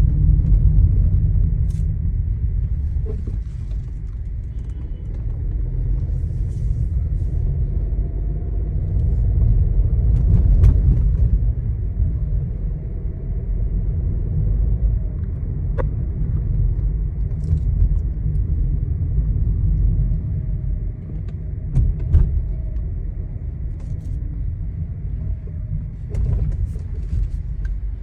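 Low steady road rumble inside the cabin of a moving Skoda Kushaq, with short irregular clicks and rattles from the interior trim. The owner traces these rattles to the dashboard, centre console and doors.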